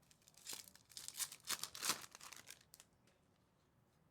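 A trading card pack wrapper being torn open and crinkled by hand, a rustling tear lasting about two seconds, loudest in the middle.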